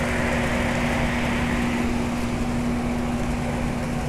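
Mid-1970s York Champion IV 'Tombstone' central air-conditioner condensing unit running steadily: a constant hum over the even rush of air. It is in working order.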